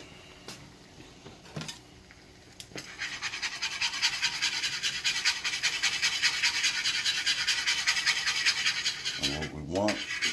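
A wire whisk beating a simmering cream sauce in a skillet, its wires scraping and rattling rapidly and steadily against the pan. The whisking starts about three seconds in, after a few light clicks.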